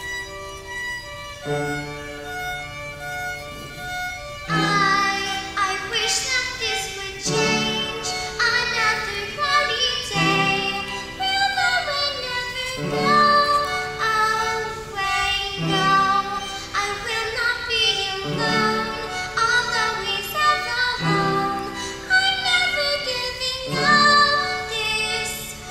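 A girl singing a slow song with violin and piano accompaniment, the instruments playing alone for the first few seconds before the voice comes in. Held piano chords change about every one and a half seconds under the melody.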